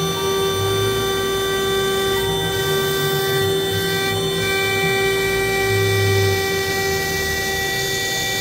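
CNC router spindle running with a steady high-pitched whine and a stack of even overtones while it cuts the wood.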